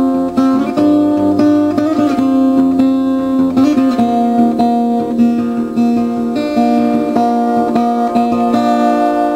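Background music: acoustic guitar playing a slow melody of plucked, ringing notes.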